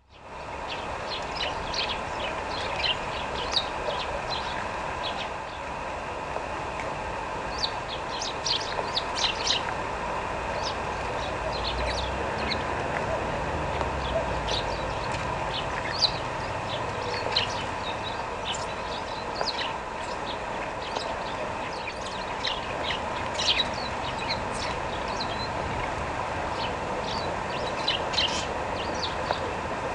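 Small songbirds, sparrows and tits, giving short high chirps scattered throughout, over a steady background hum.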